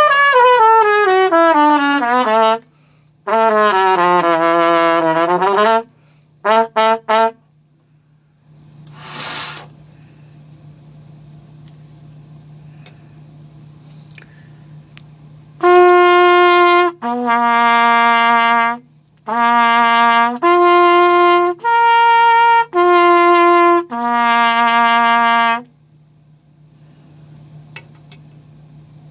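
Cornet played through a mouthpiece practice adaptor, which the player finds leaves it playing flat, out of tune: two falling slurs in the first six seconds, three quick short notes, a short hiss of air about nine seconds in, then a run of about eight separate held notes in the second half.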